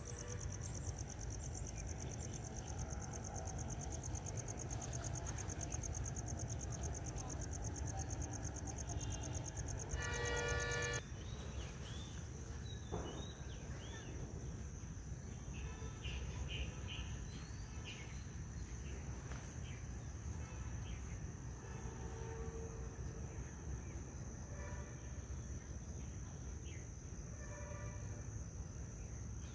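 Insects shrilling steadily in a high continuous band over a low ambient rumble, with a short pitched call about ten seconds in and a few bird chirps afterwards.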